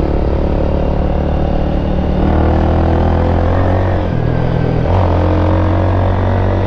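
Motorcycle with an aftermarket exhaust and its dB killer fitted, running steadily on the road; the engine pitch steps up and down a few times as the throttle changes.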